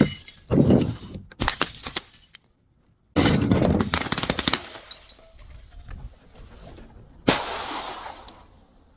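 Glass crunching and shattering as it is crushed: sharp crackling cracks in the first second and a half, then after a short pause a sudden burst of crunching crackles lasting about two seconds, and a sudden crash about seven seconds in whose hissing shatter fades away.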